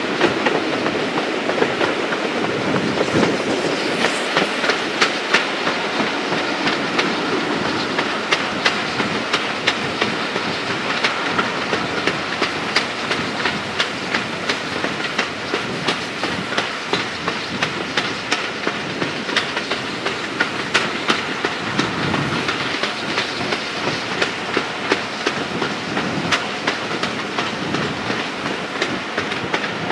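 A moving steam-hauled passenger train heard from inside a carriage at an open window: regular sharp clicks of the carriage wheels passing over the rail joints, over steady running noise.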